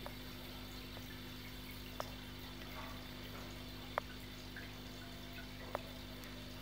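Aquarium water and equipment: a steady low hum with water trickling, and three sharp drip-like plinks about two seconds apart.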